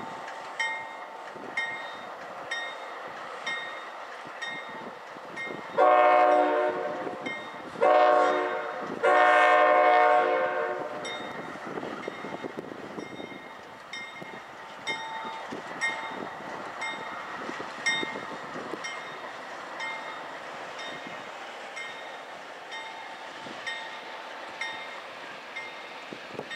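CSX diesel freight locomotive's horn sounding three blasts, the last the longest, at a grade crossing, over the crossing bell ringing about once a second. Afterwards the freight cars rumble and click past.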